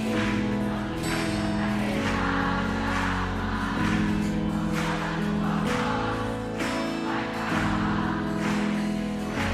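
Live Christian worship music: a band plays a slow song with sustained chords changing every second or two, and voices sing along.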